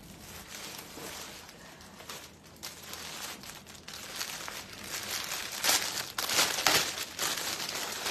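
Clear plastic garment packet crinkling and rustling as a folded dress is handled and pulled out of it, loudest and most crackly from about five seconds in.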